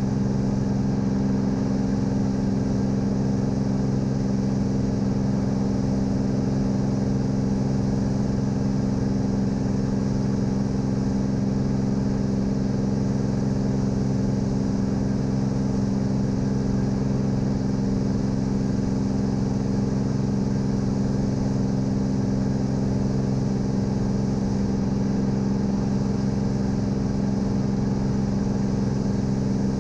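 Cirrus SR22's six-cylinder piston engine and propeller droning steadily at climb power, heard inside the cabin.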